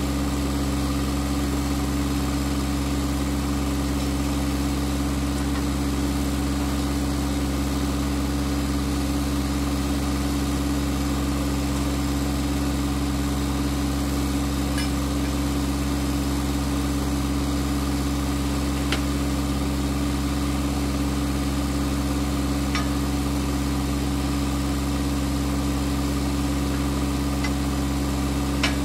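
An engine idling steadily and evenly. A few faint, sharp metallic clinks from steel fence panels being handled on a trailer, the last and loudest near the end.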